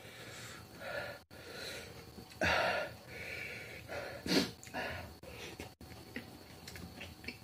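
A man eating by hand, close to the microphone: chewing and wet mouth sounds with a few loud, breathy bursts, the loudest about two and a half seconds in and a sharp one a little after four seconds. Small clicks and smacks follow near the end.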